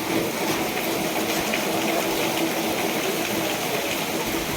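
Heavy rain pouring down, a steady hiss.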